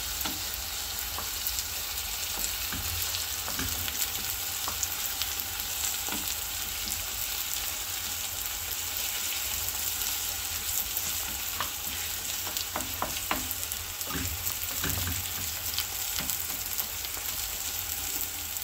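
Sliced onions and green chilies sizzling as they fry in oil in a nonstick frying pan, with short scrapes and taps of a spatula now and then as they are stirred. The onions are still raw, being fried until pale brown.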